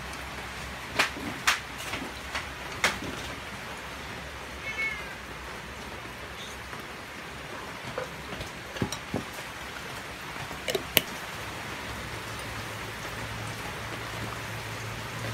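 A cat meows once, briefly, about five seconds in, over a steady hiss. A few sharp clicks come in the first three seconds and again near eleven seconds.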